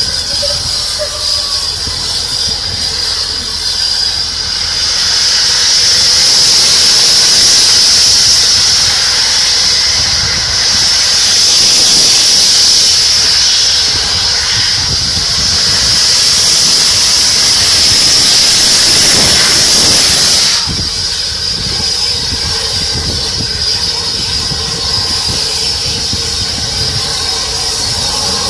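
Bulleid Battle of Britain Pacific steam locomotives starting a train, with steam blasting from the open cylinder drain cocks. A loud hiss carries a steady high-pitched tone throughout; it swells about five seconds in and drops suddenly about twenty seconds in, over the engines' exhaust beats as they pull away.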